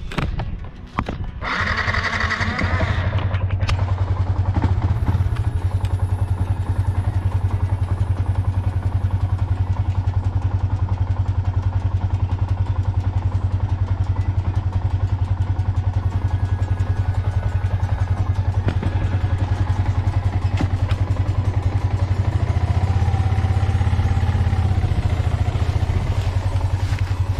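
Motorcycle engine starting about two seconds in, then idling steadily with an even pulsing beat.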